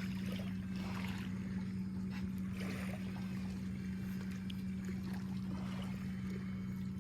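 Steady low hum of a boat's motor at one unchanging pitch, with faint water and boat noise around it.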